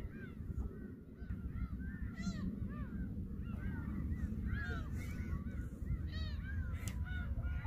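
A flock of birds calling: many short, overlapping rising-and-falling calls, over a steady low rumble.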